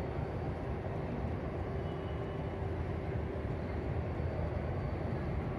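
Steady low rumble with a faint even hum: the background noise of a busy railway station concourse.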